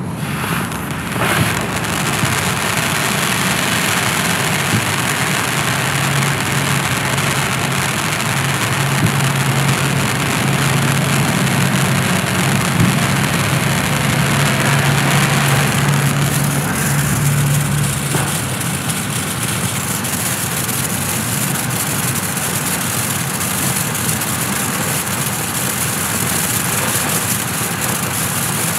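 Black Cat Summer Rain ground fountain firework spraying sparks with a steady, loud hiss. The hiss thins a little about sixteen seconds in.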